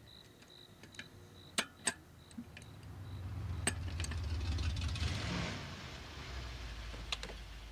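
Crickets chirping, then a vehicle engine that swells and fades as it drives past, with a few sharp clicks along the way.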